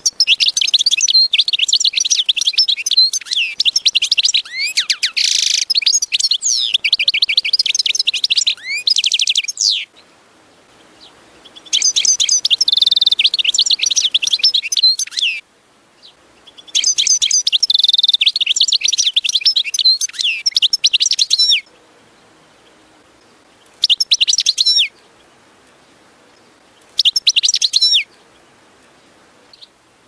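European goldfinch singing in phrases of rapid, high twittering notes. There are five phrases with short pauses between them: a long one of about ten seconds, two of several seconds, and two brief ones near the end.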